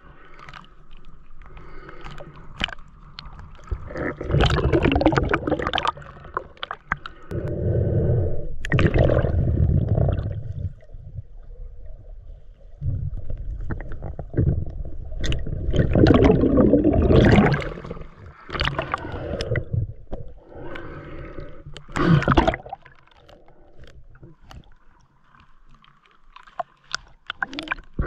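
Water sloshing and gurgling around a freediver's action camera at and below the lake surface, coming in several loud surges of a second or two with quieter stretches and small clicks between.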